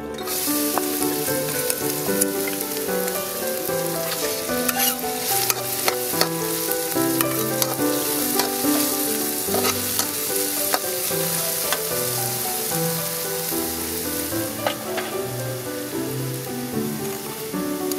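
Chopped onion and garlic sizzling in hot oil in a carbon steel wok. The sizzle starts suddenly as they go in, with sharp clicks and scrapes of a metal wok spatula against the pan.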